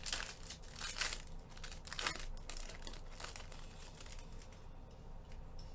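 Foil trading-card pack crinkling and tearing open by hand: a run of sharp crackles, loudest over the first two seconds or so, then lighter rustling.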